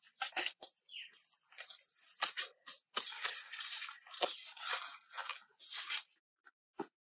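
A steady, high-pitched insect drone over repeated scraping and slapping as hands scoop wet mud and handle a woven basket; everything cuts off about six seconds in.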